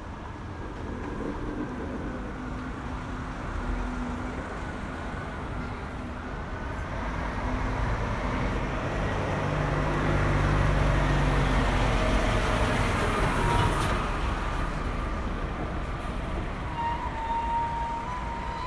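Heavy refrigerated lorry driving slowly past close by, its diesel engine rumble building to a peak about halfway through and then easing off.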